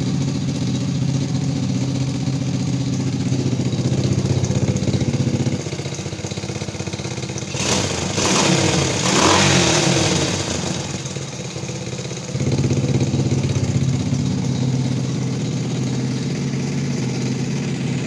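Honda Supra motorcycle's four-stroke single-cylinder engine, a freshly installed replacement engine, idling steadily. It is revved up for a few seconds in the middle and then settles back to a steady idle.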